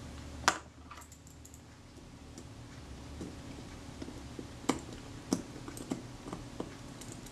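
Small metal parts of a Kodak Retina IIIS camera's film-advance mechanism clicking and tapping as they are handled and fitted by hand: one sharper click about half a second in, then a scatter of lighter ticks.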